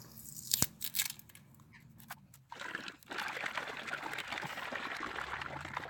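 A tin of engine restore treatment being handled and then shaken before use: a few clicks, then about three seconds of steady, dense sloshing and rattling.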